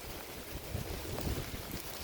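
Typhoon wind gusting across the microphone: uneven low buffeting rumbles over a steady hiss.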